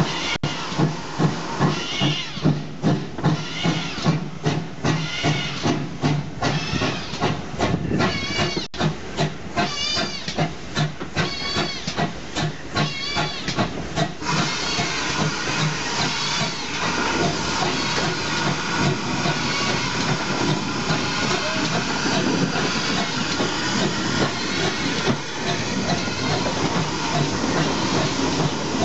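Steam locomotive working: exhaust beats at about two a second, with some high squealing between them. About halfway through this gives way to a steady hiss of steam.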